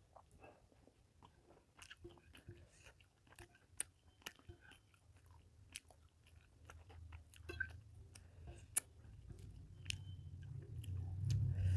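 Close-up chewing and mouth sounds of a person eating rice with fish curry: many small wet clicks and smacks. A low hum grows louder over the last few seconds.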